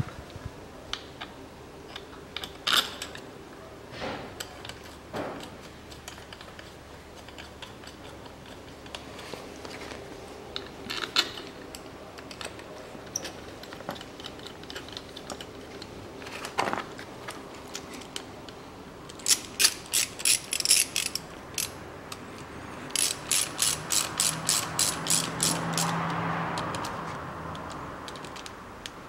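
Hand ratchet wrench clicking as bolts on a car starter motor are turned: two quick runs of clicks at about five a second in the last third, after scattered knocks of metal parts being handled.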